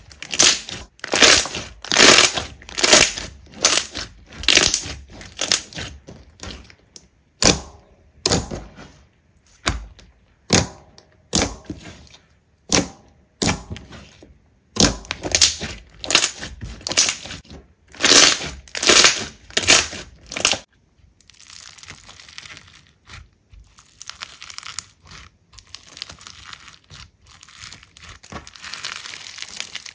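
Slime being pressed and squeezed by hand, crackling and popping in repeated bursts about once or twice a second, then a softer, more continuous crackle for the last third.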